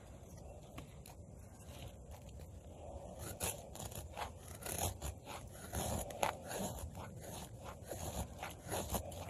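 A knife blade carving thin shavings off a dry stick: a run of short scraping strokes, faint at first and louder and closer together from about three seconds in.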